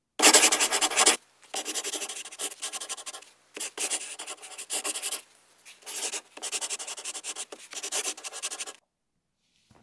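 Pen scratching across paper in quick writing strokes. It comes in several runs with short breaks, the first the loudest, and stops about a second before the end.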